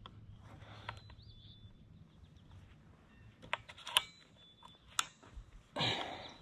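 A few faint, sharp clicks, the sharpest about four seconds in, from handling a scoped air rifle on its bipod, then a brief rustle near the end.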